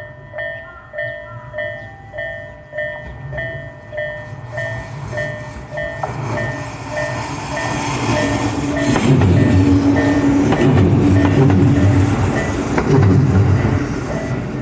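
Japanese level-crossing alarm bell ringing steadily, a little under two strokes a second, as a Tobu 8000 series electric train runs through the crossing. The train's running noise builds from about six seconds in and is loudest in the latter half, with a rhythmic clatter of wheels on the rails, then eases off while the bell keeps ringing.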